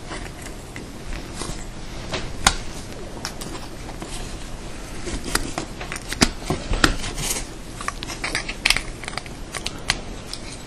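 Hand cutters snipping and prying at the crimped metal casing of a welder's bimetallic thermal cutout: an irregular run of sharp clicks and snaps, with a few louder snaps.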